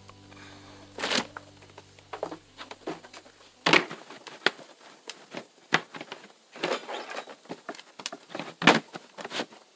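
A low steady hum of held tones that cuts off about three and a half seconds in, with irregular sharp clicks and knocks scattered throughout.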